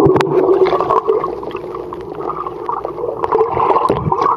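Muffled underwater sound of swimming-pool water heard by a submerged camera microphone: water swirling and bubbling, with scattered small knocks and clicks.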